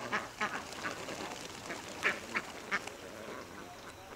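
A flock of white domestic ducks quacking as they walk, many short calls overlapping, thinning out near the end.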